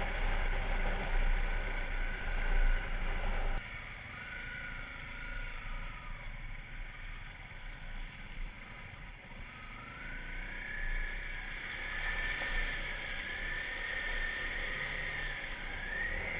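Off-road vehicle engine running, its pitch wavering and climbing toward the end as it revs, over a low rumble of wind on the microphone. The sound changes abruptly a few seconds in.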